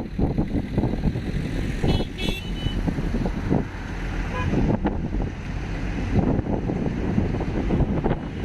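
Wind buffeting the microphone and road rumble from a moving car in traffic. A short, high-pitched vehicle horn beeps about two seconds in.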